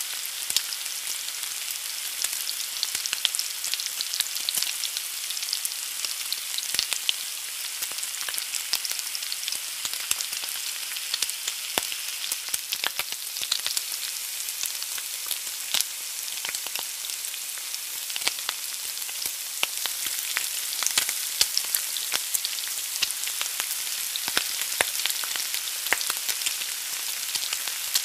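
An egg frying in a hot pan: a steady sizzle with frequent sharp crackles and pops.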